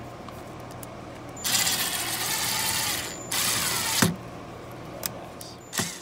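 A ratcheting screwdriver backs out the screws that hold a GFCI receptacle in a metal weatherproof box, clicking in two stretches: one about a second and a half long, then a shorter one.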